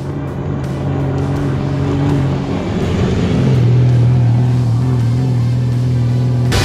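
Off-road buggy's engine running hard at speed, getting louder as it approaches and passes close by about four seconds in, with tire and dirt noise. Background music plays along with it.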